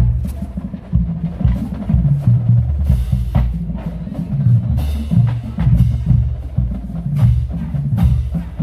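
Marching band drumline playing a loud cadence: pounding bass drums with snare drums rattling over them.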